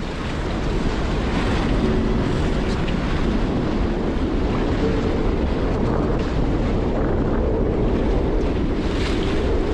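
Sea rushing and breaking along the hull of a Contessa 35 sailboat under sail in rough water, mixed with wind buffeting the microphone. A loud, steady rush without a break.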